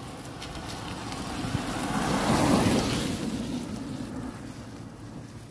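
A car passing close by, its tyre and engine noise swelling to a peak about halfway through and then fading away.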